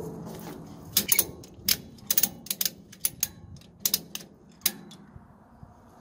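Ratchet strap's ratchet being worked by hand to tighten the webbing, its pawl giving sharp, irregular clicks from about a second in until near the end.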